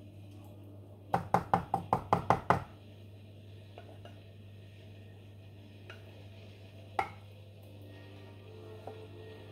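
Wooden spoon rapped quickly against the edge of a container to shake off thick yogurt, about ten sharp taps in a second and a half. Two more single taps follow a few seconds later.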